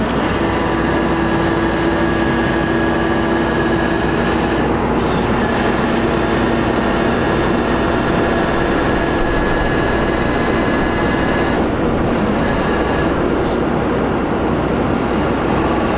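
Terex Telelect Commander 6000 digger derrick working its hydraulics with the truck's engine running under power take-off: a steady mechanical drone with whining tones that change pitch a few times as the boom is swung round.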